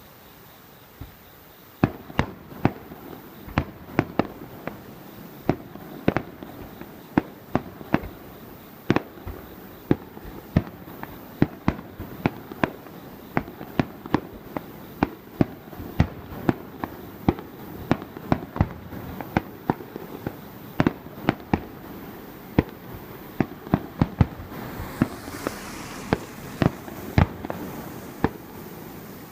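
Fireworks display: a rapid, irregular string of sharp bangs, about one every half second to a second, over a steady rumble, starting about two seconds in. Near the end a hissing crackle joins the bangs.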